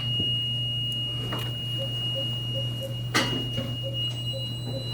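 An infant's noisy rasping breaths, one short stroke about every one and a half to two seconds, typical of the inspiratory stridor of congenital laryngomalacia. Under them a pulse oximeter gives soft regular pulse beeps about two and a half times a second, over a steady high electrical whine and hum.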